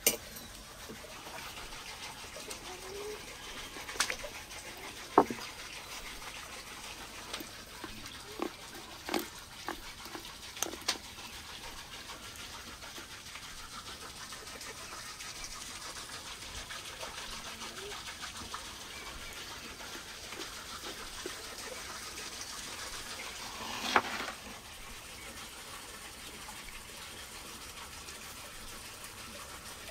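Scattered knocks and handling sounds from a raw lamb carcass being worked on a wooden cutting board, over a steady background hiss. The sharpest knock comes about five seconds in, a run of smaller ones follows, and a longer clatter comes near the 24-second mark.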